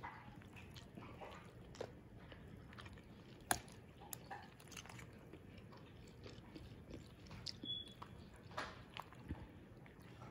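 Metal spoon stirring shredded cheddar into cooked elbow macaroni in a disposable aluminium foil pan: faint scattered scrapes and soft squishy clicks, with one sharper click about three and a half seconds in.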